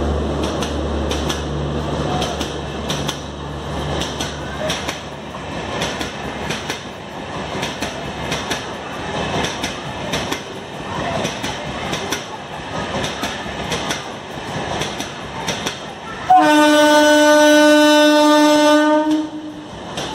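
An LHB express passing close by, its coach wheels clattering over the rail joints in a steady clickety-clack. The WAG-9 electric locomotive's low hum fades over the first few seconds. About sixteen seconds in, a train horn sounds once, steady for about three seconds, the loudest sound.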